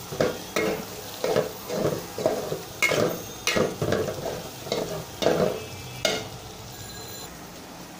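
Flat metal spatula scraping and stirring prawns and onions frying in oil in a metal pot, about two strokes a second, stopping about six seconds in while the pan goes on sizzling faintly.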